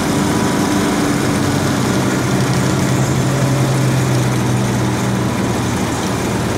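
Amphibious vehicle's engine running steadily as it crosses the water, heard from on board; a deep hum becomes more prominent from about two to five seconds in.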